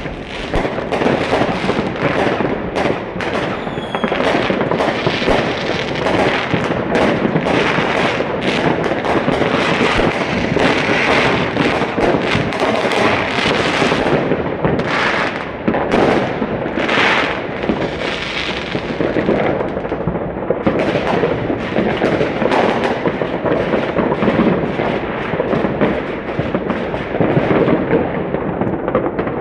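Fireworks going off densely, with many overlapping bangs and crackling firecrackers in a nonstop barrage.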